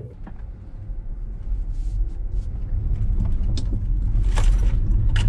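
Jaguar I-Pace electric SUV accelerating hard, heard inside the cabin: a low road and tyre rumble that grows steadily louder as the car gathers speed. A couple of brief sharp sounds come near the end.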